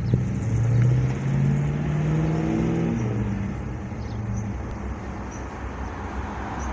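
A motor vehicle's engine running with a low, steady note that fades after about three seconds, over a steady background of road noise.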